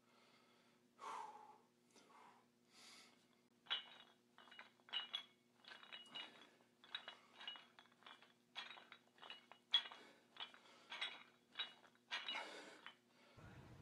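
Metal plates on plate-loaded dumbbells clinking as they are moved, a quick run of light metallic chinks about two to three a second, starting about four seconds in.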